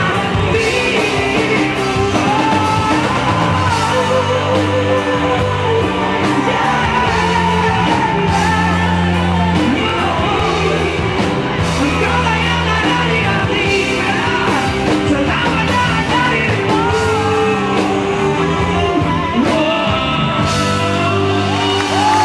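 A male singer performing a rock-style pop song with a band: a voice carrying the melody over held bass notes and guitar.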